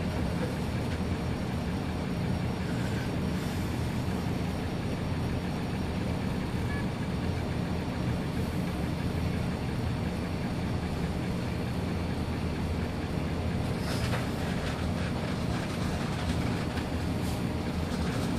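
Punchtec Ord-Bot 3D printer running a print: its stepper motors whir steadily as the bed and hotend carriage move, along with the hum of its cooling fans.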